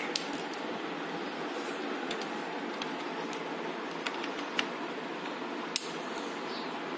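Steady mechanical whir, with a few faint clicks partway through.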